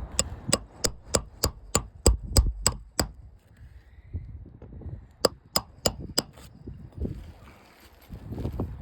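Roofing nails being hammered into an asphalt shingle: a quick, even run of about a dozen sharp strikes, a pause, then about five more.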